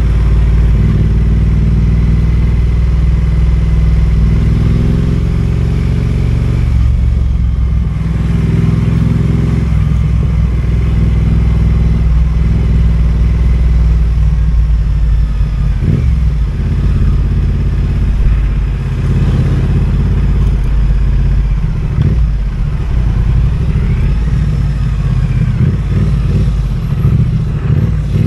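Triumph Speed Twin 900's parallel-twin engine running under way, heard from the rider's seat. Its note holds steady for stretches, then drops out briefly about seven seconds in and again around sixteen seconds before picking back up.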